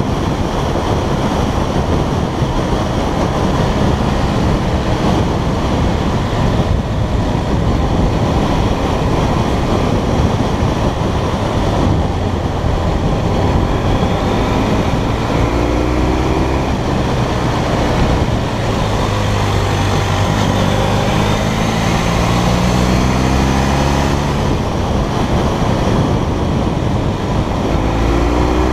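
Motorcycle engine running at road speed under heavy wind rush on the microphone, its note rising several times as it accelerates.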